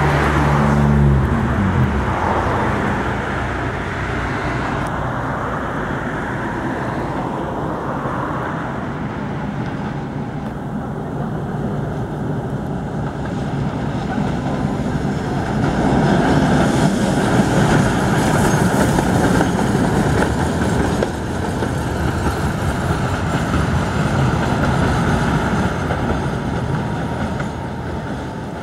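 A tram running along a city street amid traffic noise, growing louder as it passes a little after midway, then fading. A low hum stops about a second in.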